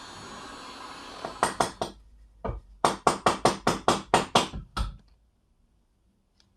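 A steady workshop noise cuts off, then a quick run of sharp metal taps: three close together, a single one, then about eight in a row at roughly five a second, with a last, heavier knock near the end.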